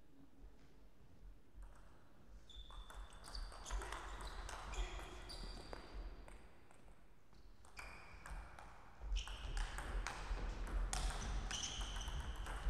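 Table tennis ball clicking off rackets and the table in quick succession as a rally is played, starting a couple of seconds in. After a short lull, more ball clicks and bounces follow.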